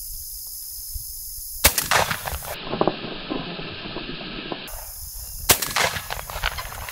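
Two shotgun shots about four seconds apart, each trailing off in a short echo.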